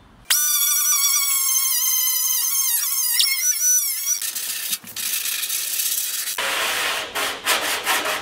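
Small grinder fitted with a 36-grit Roloc disc, whining at high speed as it grinds the cut edge of a fiberglass fender flare, its pitch sagging under load. The whine stops about four seconds in, giving way to a hiss and then a rougher, noisier grinding or abrading sound.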